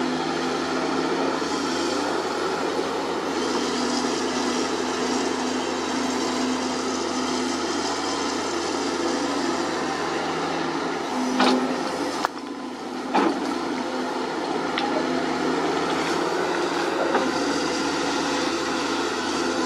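Sunward SWE210 crawler excavator's diesel engine running steadily under digging load, with two sharp knocks a little past the middle.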